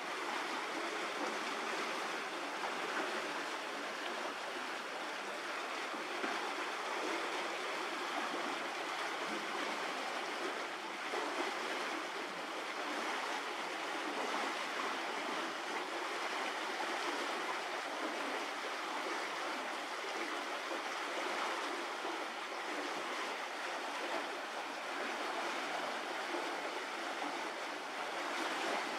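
Steady rushing noise with no separate calls, knocks or voices.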